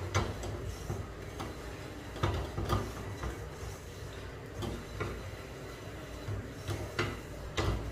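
Wire whisk stirring flour and oil in an aluminium saucepan, its wires scraping and tapping against the pan in irregular light clicks.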